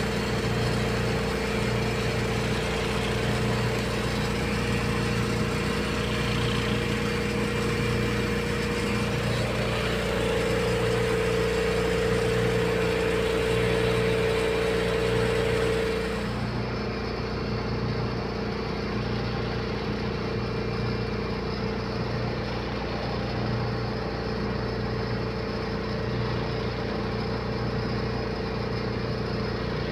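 Ship's engine-room machinery running: a steady drone with a constant low hum. A higher whine grows louder for several seconds and drops back about halfway through, and at the same moment the whole sound turns duller.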